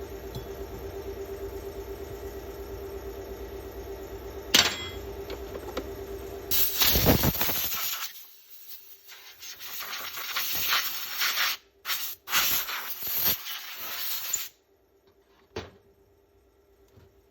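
A steady machine hum with a held tone stops at a sharp click. Then come loud hissing bursts, one long and several shorter with gaps, and finally quiet with one more click.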